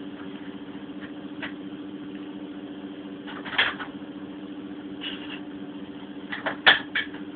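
A steady hum, with a few clicks and knocks from the tumble dryer's controls and door being worked: one about three and a half seconds in and a quick cluster near the end.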